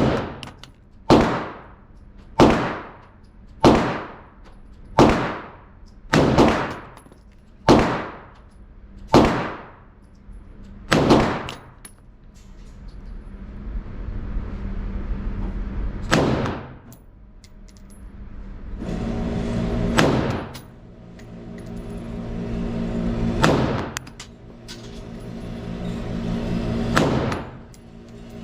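Colt AR-15-style rifle fired in single shots: a quick string of about nine shots roughly a second and a quarter apart, then four slower shots several seconds apart, each a sharp crack with a ringing tail. A steady low hum rises beneath the later shots.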